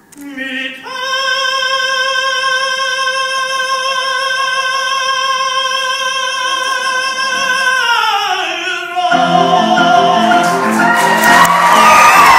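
Operatic tenor holding one long high note with vibrato for about six seconds, then sliding down in pitch. Piano chords come in near the end as audience applause and cheering rise.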